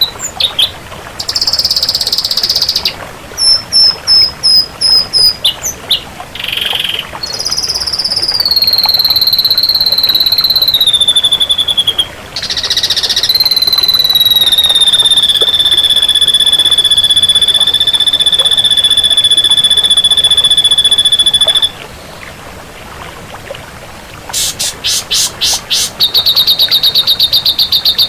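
Ashy drongo singing a varied song: short chirps and quick trills, then a long, steady high whistle held for about eight seconds, and a fast pulsed, rattling trill near the end.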